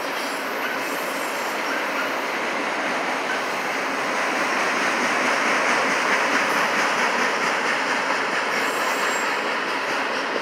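Freight train of autorack cars rolling steadily past: continuous wheel-on-rail noise with clickety-clack, growing slightly louder around the middle.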